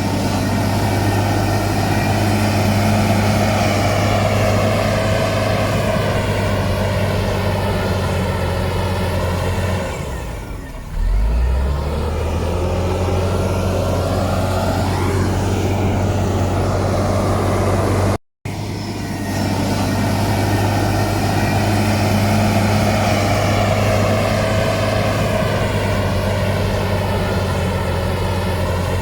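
Heavy diesel engine of earthmoving machinery running steadily, its note dropping and changing pitch about a third of the way in. The sound cuts out for an instant about two-thirds through, then runs on steadily.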